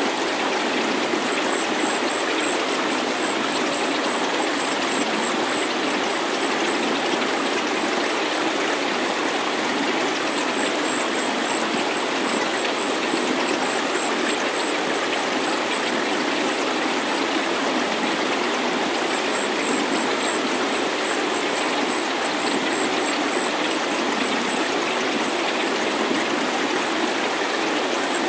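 Steady rushing noise like running water, with almost no bass, and a high tone that pulses rapidly on top of it. This is a produced 'resonant' healing sound track, not a live recording.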